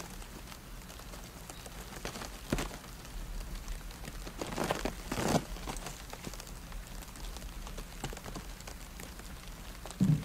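Small wood fires crackling and popping inside raised oak barrels, the fire that heats the staves so they can be bent into shape. A steady crackle is broken by a few louder pops, around two and a half seconds in, in the middle, and near the end.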